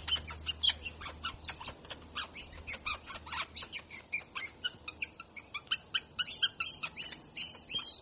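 Australian king parrot calling: a quick, continuous run of short, high chirps and squeaks, several a second.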